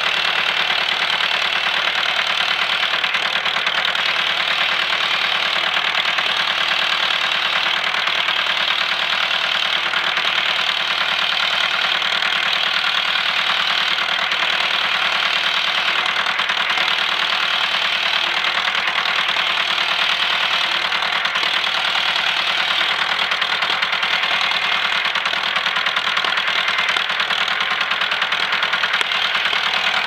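Diesel engine of a 1973 JCB 3D backhoe loader running steadily while the front loader lifts its bucket and lowers it again.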